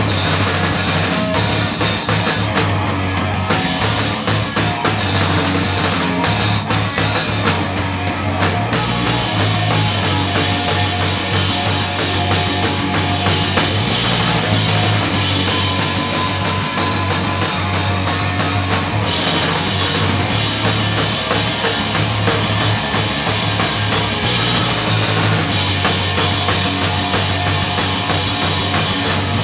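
Live rock band playing loudly: a drum kit with cymbals, with electric guitar and bass. The high cymbal wash drops out briefly a few seconds in and again near eight seconds.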